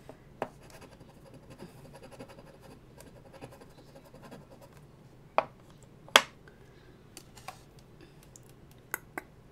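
Scratching the coating off a scratch-off lottery ticket in many short scrapes, with a couple of sharp taps a little past halfway.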